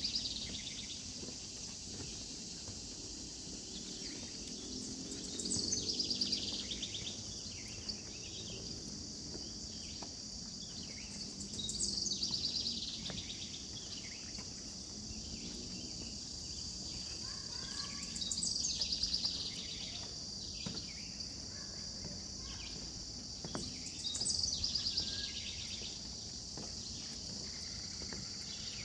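Steady high-pitched insect chorus of a summer outdoor scene. A louder buzzing call rises out of it about every six seconds, each one sliding down in pitch over a second or two.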